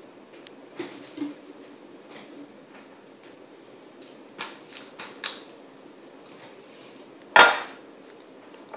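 Light clicks and knocks of a plastic acetone bottle and a glass measuring cup being handled on a granite countertop, with one sharp knock near the end as something is set down on the stone.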